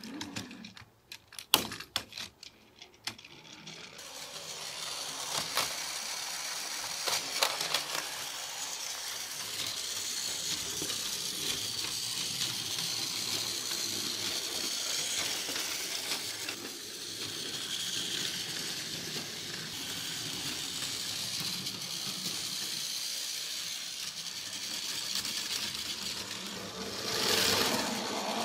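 A few sharp plastic clicks as a battery-powered Plarail toy fire engine is set on its plastic track. From about four seconds in, its small motor and wheels make a steady whir and rattle as it runs along the track, swelling briefly near the end.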